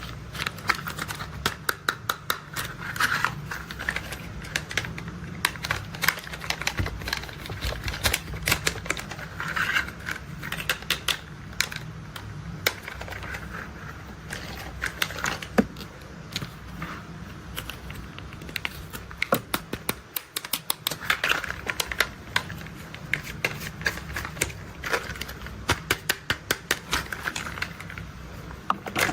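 Toy construction vehicles being handled, making rapid irregular clicking and rattling in clusters over a low steady hum.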